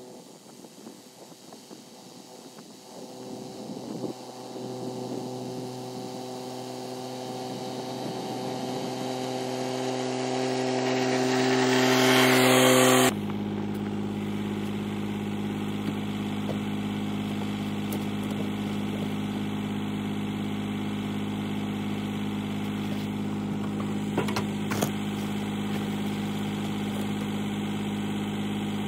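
Kioti CK3510 compact tractor's three-cylinder diesel engine running, growing steadily louder for about thirteen seconds, then changing abruptly to a steady idle. A couple of light knocks come near the end.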